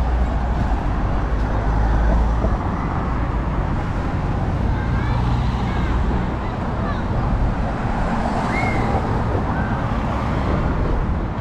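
Road traffic: cars driving past close by, a steady mix of engine and tyre noise, with a heavy low rumble in the first couple of seconds.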